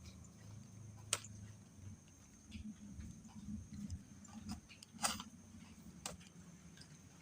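Scattered sharp clicks and knocks, the loudest about five seconds in, over a faint uneven low rumble and a thin steady high whine.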